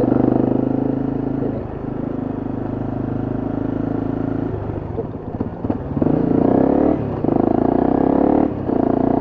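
Honda CRF250M's single-cylinder four-stroke engine on the move. It runs steadily at first, eases off around the middle, then accelerates with rising pitch, cut by two quick upshifts about seven and eight and a half seconds in.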